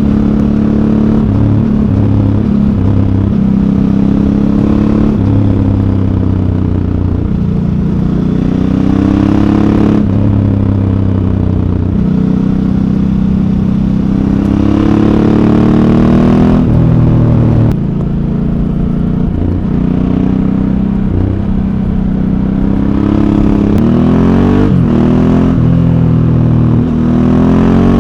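Ducati Hypermotard 1100S air-cooled V-twin on its stock exhaust, ridden hard: the engine note climbs under acceleration and drops at each gear change, again and again. Near the end it swings up and down quickly several times.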